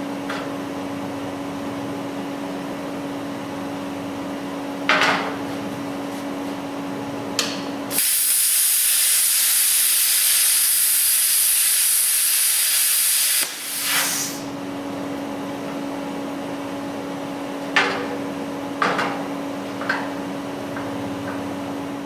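Plasma cutter cutting the steel frame rail to enlarge a hole: a loud, even hiss of air and arc starts about eight seconds in, lasts about five and a half seconds and stops abruptly, followed by a brief second puff of air. A steady hum and a few sharp knocks sound around it.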